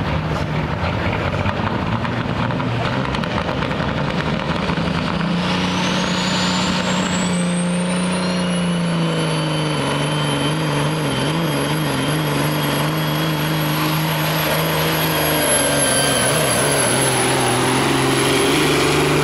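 Pro stock semi truck's Caterpillar diesel engine running at full power, pulling a weight-transfer sled. A turbocharger whine rises from about five seconds in, then holds high and steady over the heavy engine note.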